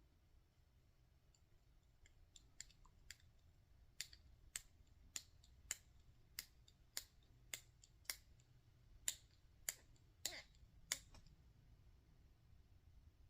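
Small screw being turned by hand with a screwdriver into a plastic helicopter arm: a string of sharp, light clicks, about two a second. The clicks begin a couple of seconds in and stop a couple of seconds before the end.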